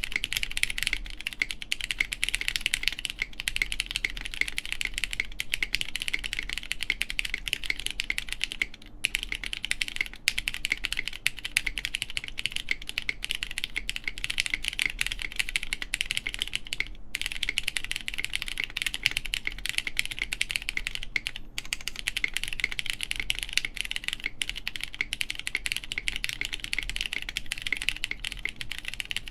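Steady, fast typing on a plateless Gok Lily mechanical keyboard with lubed Cherry MX Brown switches and GMK keycaps: a dense stream of keystrokes broken by a few brief pauses.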